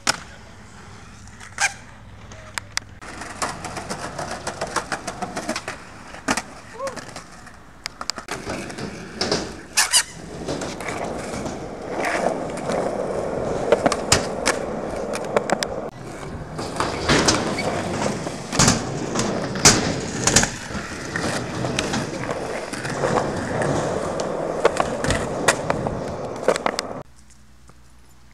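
Skateboard wheels rolling on concrete, with many sharp clacks of the board popping, striking ledges and landing. The rolling stops shortly before the end.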